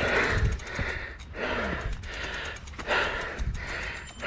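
A person breathing hard and fast, rhythmic hissing in-and-out breaths about two a second, the panting of a mountain biker worn out from walking his bike up the trail.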